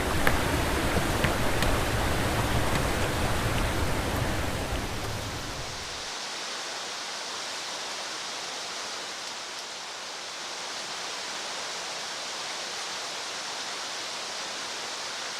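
Rushing water of a small falls or rapids, a steady hiss. For about the first six seconds a heavy low rumble sits under it, then drops away suddenly, leaving the water's hiss alone.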